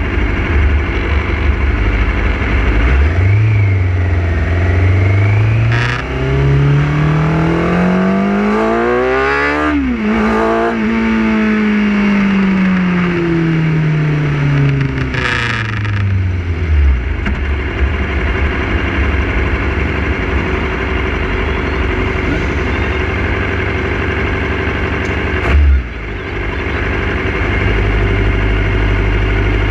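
Motorcycle engine pulling up through the revs for several seconds, then falling back as the bike slows, over wind rushing across the microphone. A short sharp knock comes near the end, and the engine settles to a steady low idle.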